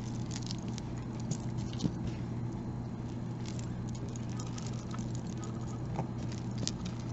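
Light clicking and clinking of a beaded necklace's metal chain links and beads as it is lifted and handled, scattered small ticks over a steady low hum.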